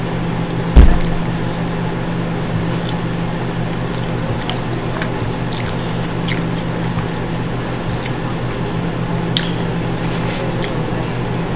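A person chewing soft food: wet squishing and clicking mouth sounds over a steady low hum, with one dull thump about a second in.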